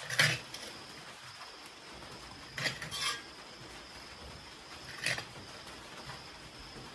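Kitchen utensils clinking against dishes or pots: a few short sharp clinks, the loudest right at the start, with a pair about two and a half seconds in and one more about five seconds in.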